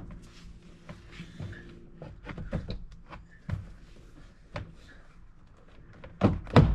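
Plastic interior door panel of a Honda S2000 being slid onto the door, with scattered light knocks and rubbing, then two loud knocks close together near the end.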